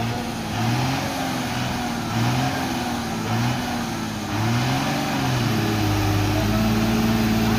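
Tata tipper truck's diesel engine revving up and down in repeated surges as it pulls under load through deep mud ruts, then held at steady high revs for the last couple of seconds.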